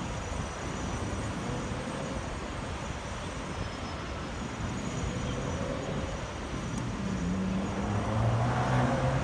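Steady city street traffic roar, with an engine drone growing louder near the end.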